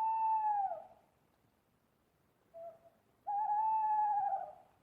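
An owl hooting: two long held hoots, each dropping in pitch at its end, the second longer and wavering, with a short faint note between them.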